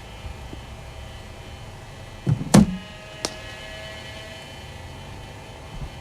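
Steady hum of a cricket bowling machine running. About two and a half seconds in comes a loud knock as a ball is fired and struck with the bat, then a lighter knock under a second later.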